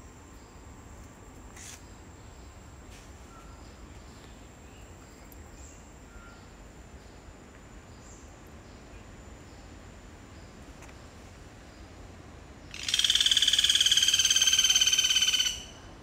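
Rainforest ambience with a faint steady high-pitched tone and a few soft chirps; about thirteen seconds in, a loud, rapidly pulsed buzzing animal call starts abruptly, lasts about three seconds and stops.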